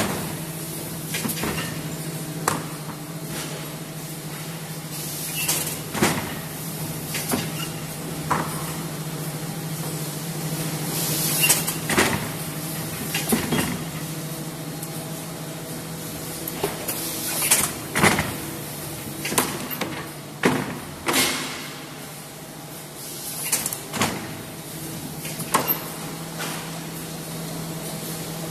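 Steady low hum of a paper core (tube) making machine running, with a dozen or so irregular hollow knocks and clatters of cardboard tubes being handled, the loudest in the second half.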